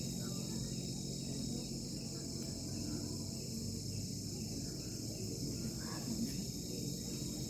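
Crickets chirring in a continuous, steady high-pitched chorus, with a low steady hum underneath.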